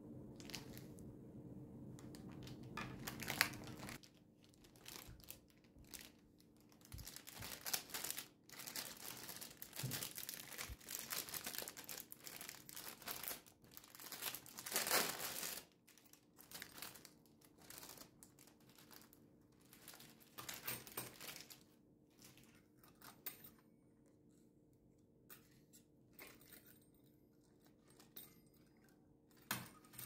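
Plastic and paper retail packaging being handled, crinkled and torn open by hand: a long run of rustling strokes, loudest about halfway through, thinning out to a few light clicks and taps.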